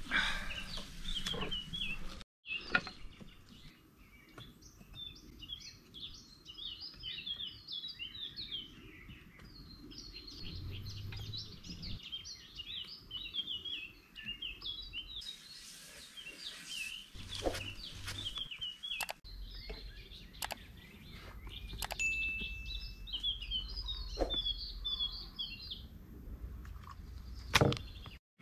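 Small birds chirping and singing in quick, busy runs of short high notes, with a few sharp knocks or clicks scattered through, the loudest near the end.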